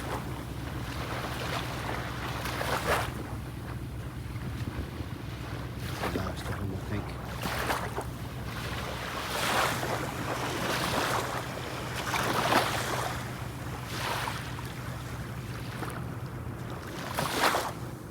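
Bow waves from a passing tanker's wake breaking on the shore, one wash after another every second or two, over a steady low drone.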